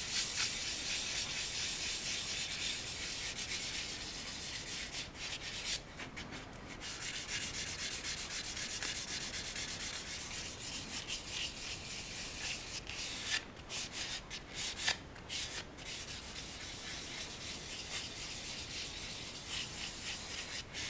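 A 320-grit sanding sponge rubbed back and forth over a cast-resin figure part, making a steady high scratchy hiss of quick short strokes, with short breaks about six seconds in and again around thirteen to sixteen seconds. It is smoothing away mold lines on the resin.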